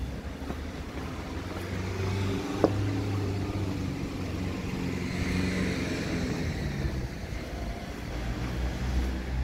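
A motor vehicle passing nearby, its engine hum and road noise swelling and then fading over a few seconds, with one sharp click about two and a half seconds in.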